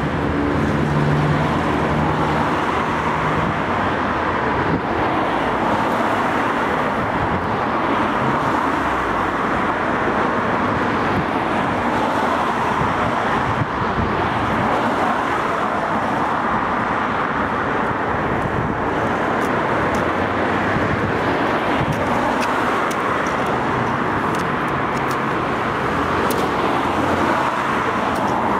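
Steady road traffic noise from cars passing on an adjacent road, a continuous even rush with no single vehicle standing out.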